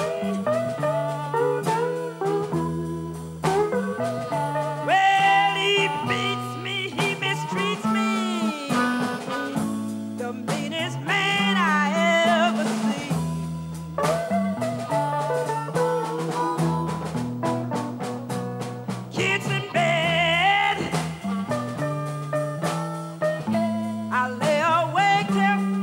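Chicago blues band playing: electric slide guitar with sliding, wavering notes over a walking bass guitar line and drums, with a woman singing.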